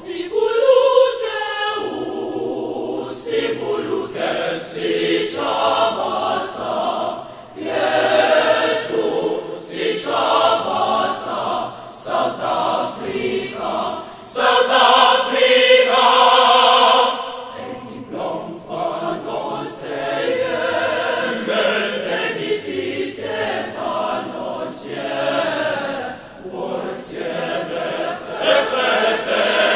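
School choir of girls and boys singing together in harmony, in long phrases with brief breaks between them, swelling to its loudest about halfway through.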